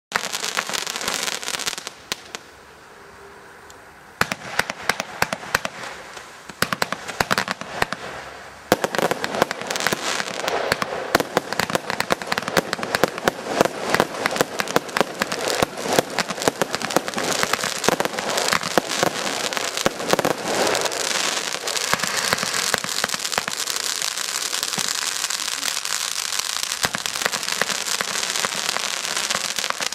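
Fireworks going off: a rapid, dense series of sharp cracks and crackling, with a brief lull a few seconds in, then near-continuous crackling for the rest.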